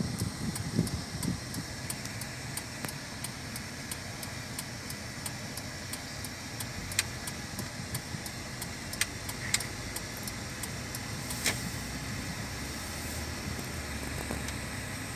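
Steady low engine and tyre rumble heard inside a moving car's cabin, with a few sharp clicks in the middle.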